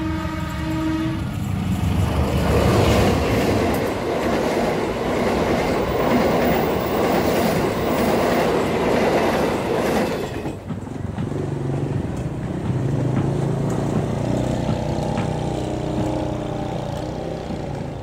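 Diesel locomotive horn sounding for about a second, then a passenger train passing at speed with a loud rush of wheel-and-rail noise and clatter. The noise cuts off abruptly about ten seconds in, and a locomotive's diesel engine drones steadily after that.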